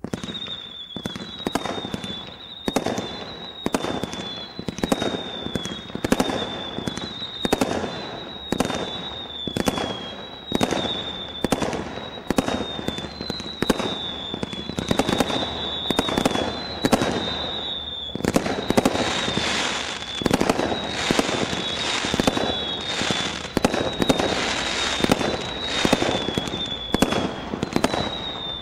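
Brothers Pyrotechnics Dark Angel 100-shot combination Roman candle barrage firing a steady string of shots, about two a second. Each shot is followed by a short high whistle that falls slightly in pitch. From about 18 seconds in, a hiss joins the shots.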